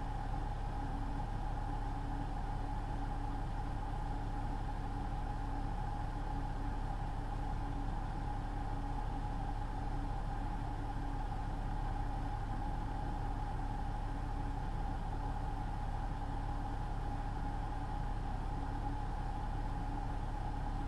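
A truck's engine running steadily, heard as an even drone from inside the cab through a dashcam microphone, with a constant mid-pitched whine over it.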